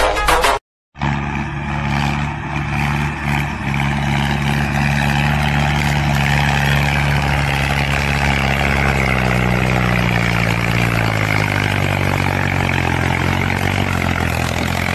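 Diesel tractor engines working hard under heavy load, pulling a loaded sugarcane trolley through a soft field. The engine note starts after a brief dropout about a second in, holds steady, then slowly drops in pitch as the engines lug down.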